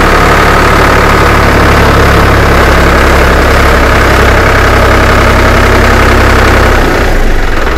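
Sonalika DI-745 III tractor's three-cylinder diesel engine running steadily just after being started, with a slight drop in level and pitch near the end.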